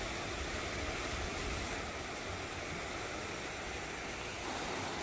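Steady rushing of a small rocky stream running in rapids, mixed with wind on the microphone.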